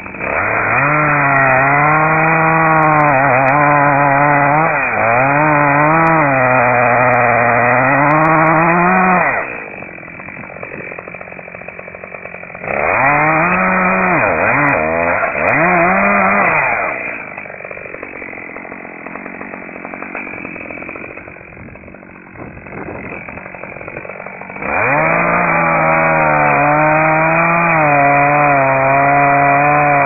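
Two-stroke chainsaw cutting into a large tree trunk at full throttle, its pitch dipping and rising as the chain loads up in the wood. It drops back to idle about nine seconds in, revs up again briefly, idles once more, then runs at full throttle in the cut again for the last five seconds.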